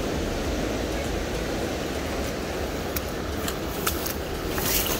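Steady rushing of the river current close to the microphone, with a low rumble under it. A few sharp clicks come near the end as the aluminium landing-net pole is handled.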